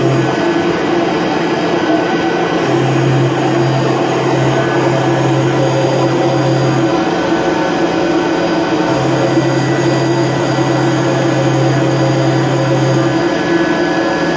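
XYZ 560HD CNC mill roughing aluminium flat out with a WNT CircleLine DLC-coated end mill: a steady high spindle whine and cutting noise. A lower drone comes and goes twice, each time for about four seconds.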